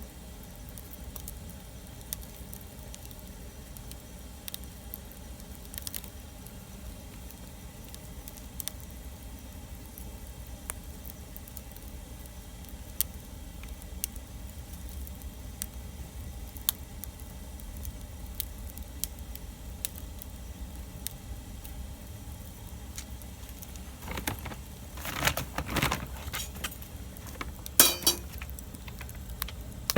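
Wood fire crackling: scattered sharp pops over a low, steady rumble, with a louder run of cracks and clatter near the end.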